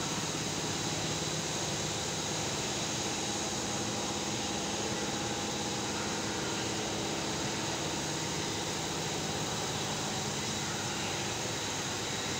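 Steady mechanical hum and hiss with several constant tones underneath, with no separate knocks or clear rhythm: the running drone of machinery and ventilation.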